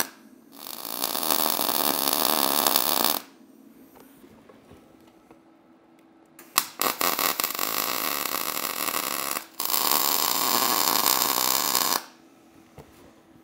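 Arc welding on a steel truck frame joint: three runs of crackling arc noise, each about three seconds long, with short pauses between them in which only a faint steady hum remains.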